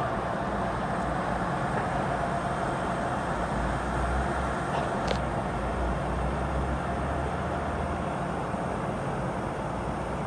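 Steady hum and low rumble of a Metro-North M8 electric railcar standing at the platform, its rooftop ventilation and electrical equipment running.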